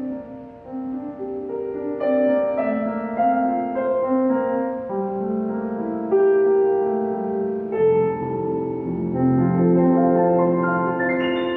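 Steinway & Sons K52 upright piano being played: chords and a melody, with deeper bass notes coming in about eight seconds in.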